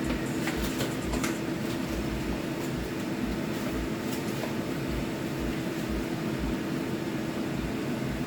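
A steady machine hum, like a motor or fan running, with a few light clicks about a second in.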